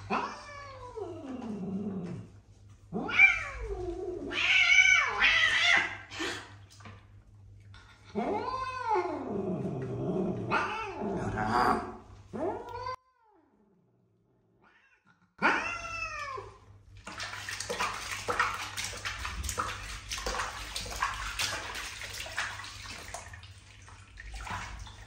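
A wet domestic cat yowling and meowing in protest at being bathed, about half a dozen long wavering calls, some falling in pitch. After a brief silence and one last meow, bath water sloshes and splashes as the cat is washed for the last several seconds.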